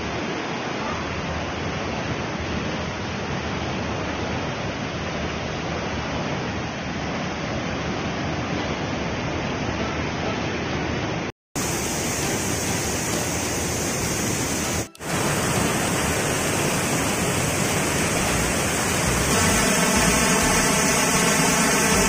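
Waterfall and fast, shallow river water rushing over rocks: a steady, full noise. The sound cuts out for a moment about 11 s in, and near the end a steady chord of background music comes in over the water.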